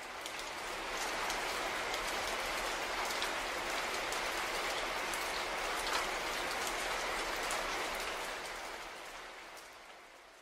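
Steady rain with scattered drop patters, swelling in over the first second and fading out over the last couple of seconds.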